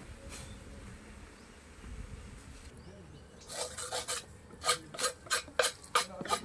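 A bee brush sweeping bees off a honey comb frame: a run of about eight quick rasping strokes, starting a little over halfway in. These follow a faint low hum.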